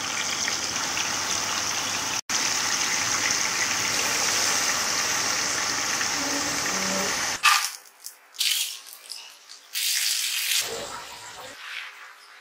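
Marinated chicken strips deep-frying in hot oil, a steady loud sizzle with a brief break about two seconds in. After about seven seconds the sizzle gives way to shorter, fainter bursts.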